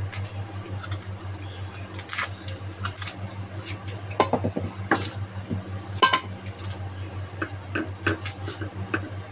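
Irregular light taps and clinks against a dish while garlic cloves are peeled by hand, over a steady low hum.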